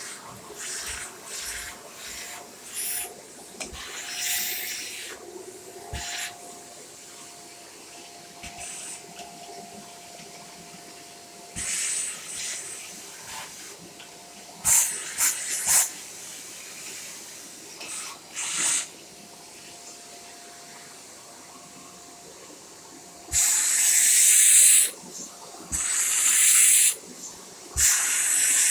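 Shark corded bagless vacuum cleaner running with a faint steady whine, broken by repeated loud bursts of high rushing-air hiss. The longest bursts, lasting a second or two, come near the end.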